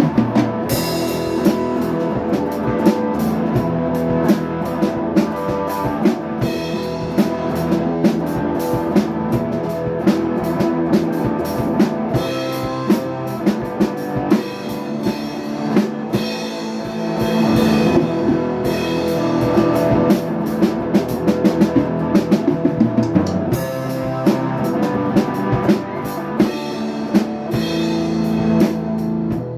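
Rock music played on drum kit and guitar, with a steady beat.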